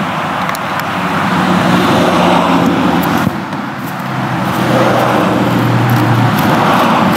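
Steady road-traffic noise, with a low engine hum that comes and goes and a few faint ticks.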